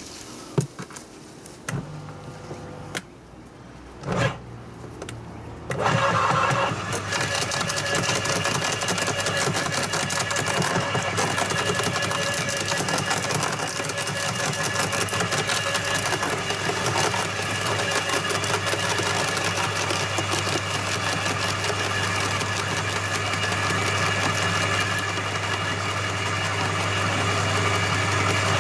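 A few knocks and clicks, then about six seconds in a 2000 W electric roller wood chipper switches on and runs with a steady hum and a continual crackling as branches are crushed through it on its smallest setting.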